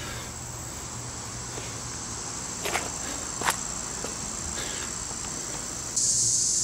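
Steady, high-pitched insect trilling, with a few soft knocks. Near the end a louder high hiss cuts in abruptly.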